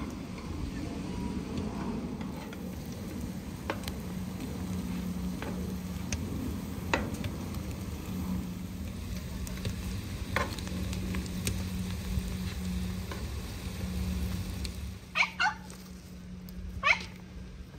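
Bread slices frying in oil in a pan: a steady sizzle with a few sharp clicks of metal tongs against the pan as they are turned. Near the end the sizzle gives way to a few short sharp sounds.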